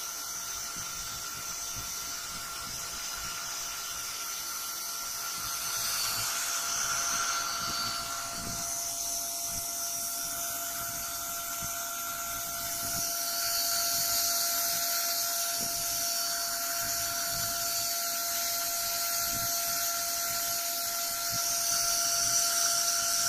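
Steady electrical whine from the running laser diode module and its driver rig: one constant tone with a fainter overtone, over a light hiss.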